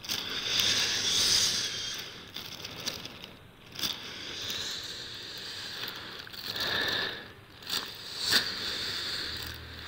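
Thin plastic bag crinkling and rustling in uneven swells of a second or so, with a few short sharp crackles.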